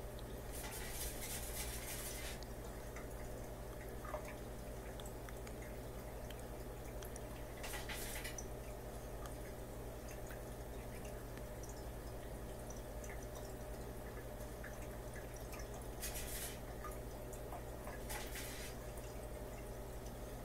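Small saltwater aquarium running: a steady low equipment hum with faint water dripping and trickling. Four brief hissing bursts come several seconds apart.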